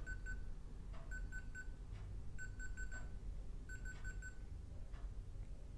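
Touch-key beeps from an MCOHome GM7H touchscreen thermostat as its up key is tapped repeatedly to step a setting: short, identical high beeps in quick runs of three or four, four runs in all.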